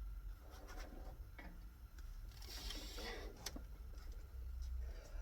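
Faint scattered clicks and a brief scraping hiss about two and a half seconds in, from a tap being worked by hand into a drilled hole in cast iron. The tap is not cutting properly.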